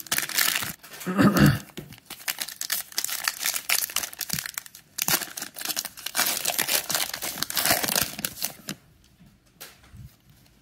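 Plastic trading-card pack wrappers crinkling and tearing in the hands: a crumpled foil wrapper and a 12-card Panini Mosaic cello pack being handled and opened, a dense crackle that is loudest about a second in and dies away near the end.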